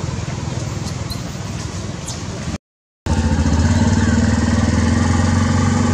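A small engine idling steadily, a constant low hum. The sound cuts out for about half a second around two and a half seconds in, then comes back louder.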